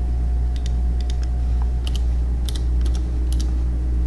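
Computer keyboard keys clicking in short irregular runs as a node name is typed into a search menu, over a steady low electrical hum.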